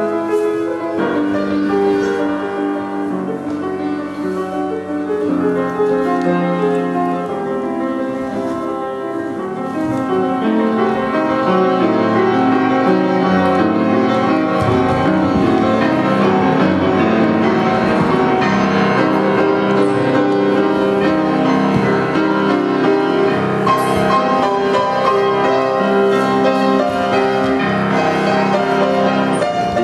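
Instrumental piano music with held, layered notes, growing fuller and louder about ten seconds in.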